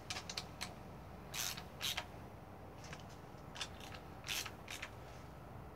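Hand ratchet with a 10 mm socket clicking in several short runs as bolts are snugged down by hand, ahead of torquing.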